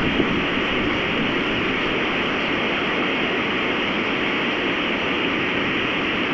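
Strong storm wind blowing steadily as a constant rushing noise, with one brief thump just after the start.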